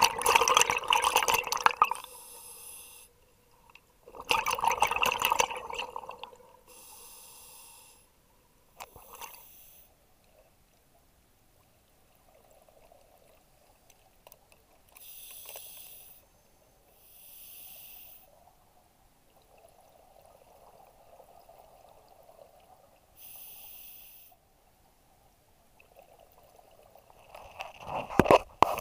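Scuba diver breathing through a regulator underwater. Loud bursts of exhaust bubbles come near the start, about four seconds in and again near the end, with short hissing inhalations and fainter bubbling between.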